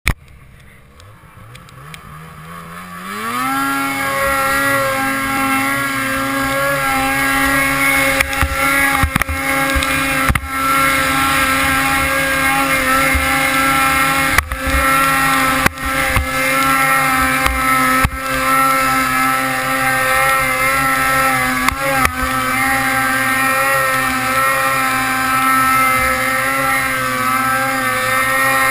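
A Ski-Doo Summit 800 snowmobile's two-stroke twin engine revs up about three seconds in, then holds high, nearly steady revs under load while climbing a steep chute in deep powder. A few short sharp knocks come through along the way.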